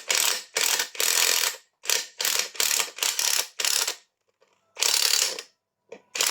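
Ratchet wrench clicking through a run of quick back-and-forth strokes, about nine short ratcheting bursts with a brief pause partway through, as a bolt is worked on the motorcycle engine.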